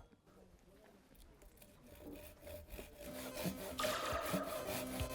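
Hand saw cutting through wood in back-and-forth strokes, starting faintly and growing louder from about two seconds in.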